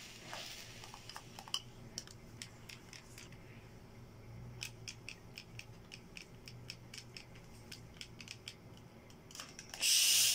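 Small Oriflame steam iron being pushed back and forth over a T-shirt: soft scraping with scattered light clicks and taps. Near the end the iron lets out a short, loud hiss.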